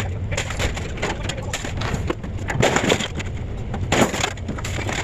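Scrap metal being unloaded: dense, irregular clanks and crunches of appliances and junk over a steady low engine rumble.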